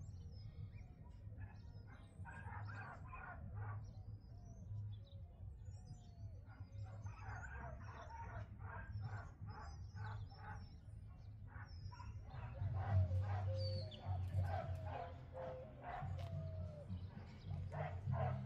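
A dog barking in quick runs of short barks, with small birds chirping high above and a steady low hum underneath.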